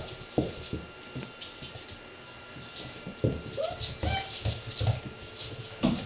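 Red standard poodle puppy playing with a rope toy on a tile floor: scuffles and sharp knocks of paws and toy on the tiles, with a short high whimper about four seconds in.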